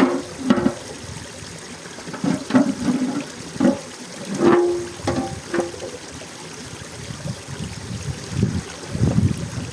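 Water splashing and gurgling in irregular bursts over a steady trickle of running spring water.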